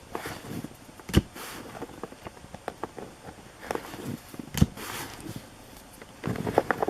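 Baseball cards and foil pack wrappers being handled on a table: scattered clicks and rustling, with two louder knocks about a second in and a little past the middle, and a quick run of clicks near the end.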